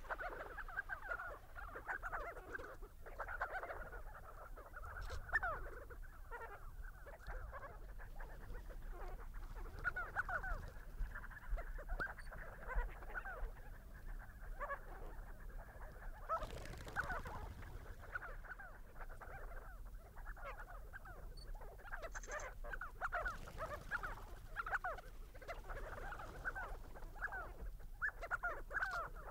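A flock of crowned and spotted sandgrouse calling continuously as they drink: many short, overlapping chattering notes.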